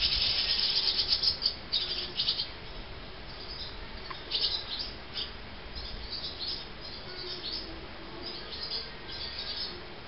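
Barn swallow chicks begging for food, mouths gaping: a loud burst of rapid high chirping in the first second and a half, then shorter, softer bouts of twittering through the rest.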